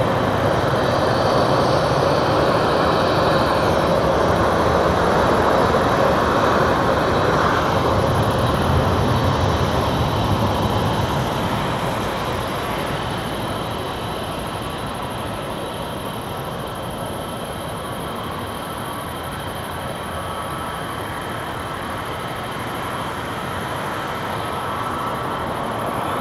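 Jet airliner's engines at takeoff power: a loud roar with a steady high whine. The roar fades after about ten seconds as the aircraft moves away.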